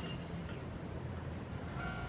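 A train running past with a steady low rumble. Just before the end, a Japanese railroad crossing alarm starts its repeating electronic bell tones.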